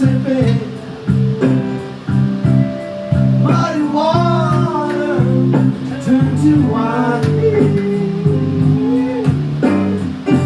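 Blues song with guitar and a singing voice.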